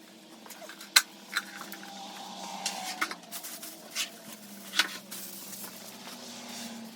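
Handling noise from unpacking a welder's accessories: packaging rustling with about six sharp clicks and knocks, the loudest about a second in, over a faint steady hum.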